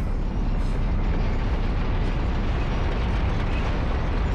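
Steady deep rumble with no separate blasts: film sound effect of the giant mobile city of London grinding forward.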